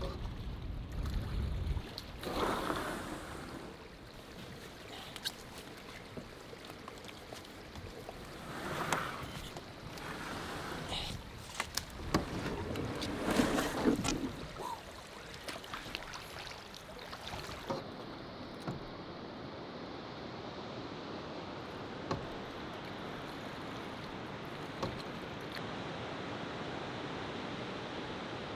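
Canoe paddle strokes splashing in the water a few times. From about two-thirds of the way in there is a steady, even rush of a waterfall.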